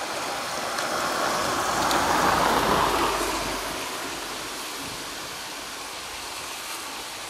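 A car passing on a wet street, its tyres hissing, swelling to a peak about two to three seconds in and fading, over steady wind rushing through tall trees and rain.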